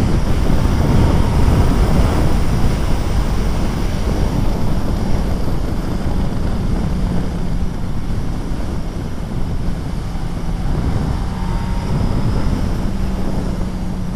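Heavy wind noise on the microphone over a Suzuki B-King motorcycle's 1340 cc inline-four cruising at highway speed. A steady low engine drone runs under the wind.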